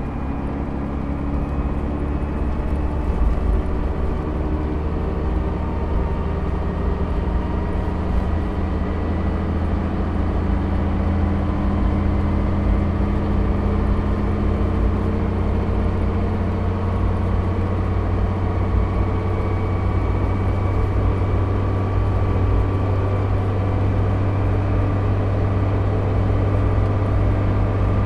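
Leyland National Mk1 bus's 8.2-litre Leyland 0.510 fixed-head turbodiesel running steadily under load as the bus cruises up toward its geared top speed of about 50 mph, heard from inside the cabin at the front with road noise. It grows gradually louder through the stretch.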